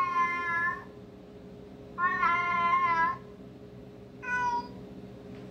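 Kitten meowing three times in high-pitched calls: one ending just under a second in, a longer one about two seconds in, and a short one a little past four seconds.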